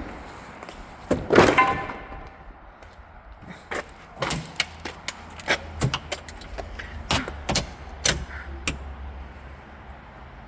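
Interior trim of a BMW E46 being pried and pulled off: a louder pull about one and a half seconds in, then a run of irregular sharp plastic clicks and knocks.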